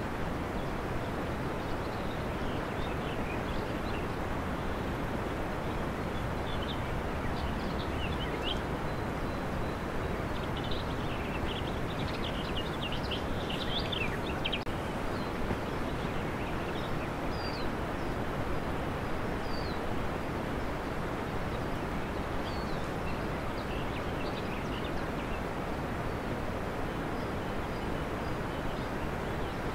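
Steady outdoor ambience: an even, low rushing noise with faint bird chirps scattered through it, most of them around the middle.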